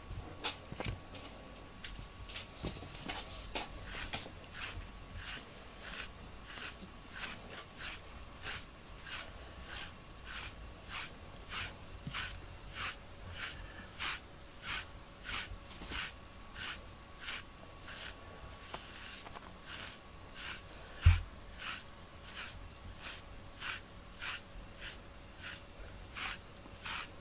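FURminator deshedding tool raking through a cat's thick coat in steady strokes, about two a second, each a short rasp as it pulls out loose undercoat. One loud low thump about three quarters of the way through.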